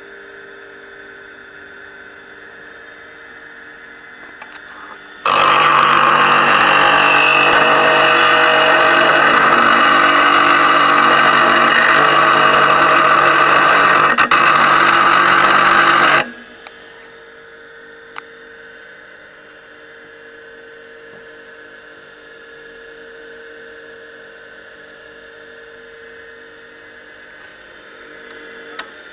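Wolf TG8E three-phase electric bench grinder running with a steady motor hum. About five seconds in, a loud, harsh grinding noise starts suddenly, as work is pressed against the wheel. It holds for about eleven seconds, then cuts off, leaving the motor running.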